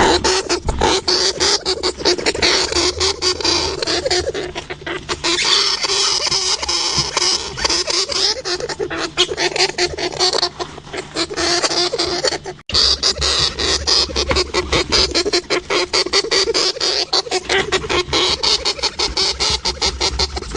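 Hamster sounds: dense rapid clicking with squeaks mixed in, broken by a brief drop-out about two-thirds of the way through.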